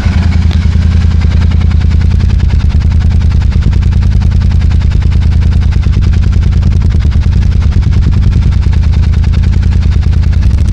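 Royal Enfield Super Meteor 650's parallel-twin engine idling steadily through an aftermarket Rhino Racing exhaust with the dB killers inserted: a loud, even, deep pulsing exhaust note.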